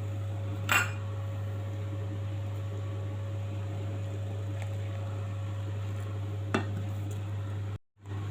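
Two short clinks of kitchen utensils against dishes, one about a second in and one near the end, over a steady low hum.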